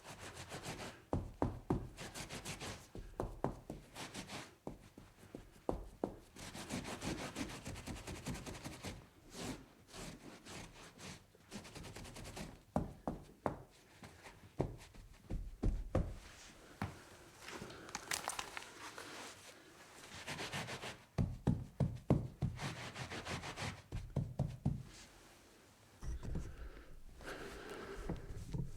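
Wiping and scrubbing a tabletop in uneven rubbing strokes, with scattered light knocks as things are moved or tapped on the table.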